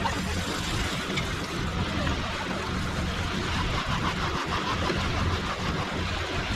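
Heavy diesel machinery running steadily on a concrete pour: a low engine hum under a broad, even hiss.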